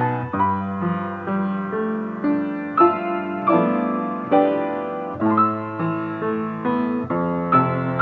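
Solo piano playing a slow, gentle melody over held chords, a new note or chord struck about every half second to a second.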